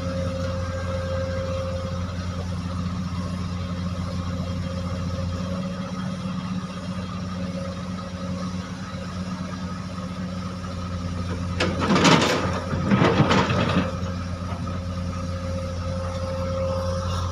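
Excavator's diesel engine running steadily, with two loud crashing, grinding bursts about twelve and thirteen seconds in as a boulder is dumped or scraped against steel while being loaded into a dump truck.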